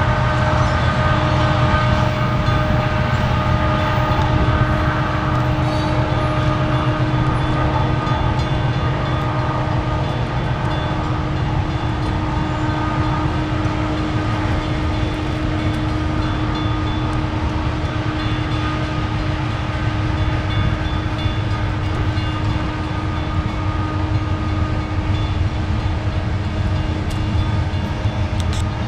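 Coal hopper cars of a long BNSF freight train rolling past in a steady rumble of wheels on rail, with a steady tone running through it.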